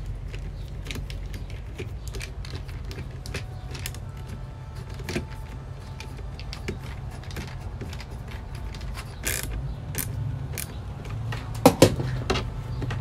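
Small clicks, taps and creaks of electrical wires and metal hardware being worked into an AC breaker panel, over a low steady hum. A couple of sharper clicks come near the end.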